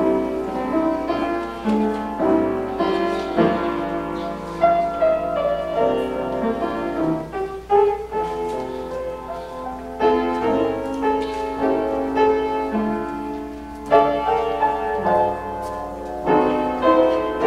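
Piano-style keyboard playing slow chords and melody as background music, with notes struck every second or so, over a low steady hum.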